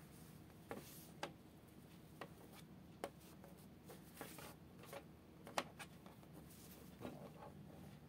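Silk fabric being handled and smoothed on a sewing machine bed: faint rustling with a scattering of small clicks and taps, one sharper tap a little past the middle.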